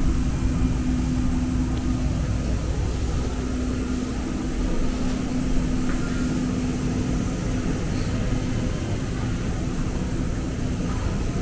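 Steady low hum and drone inside a stopped Muni Metro light-rail car, with a low hum tone that cuts out about two-thirds of the way through.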